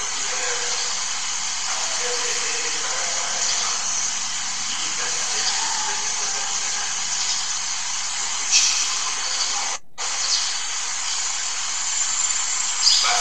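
Loud steady hiss with a man's voice faint beneath it. There is a short click late on, and the sound cuts out completely for a moment about two-thirds of the way through.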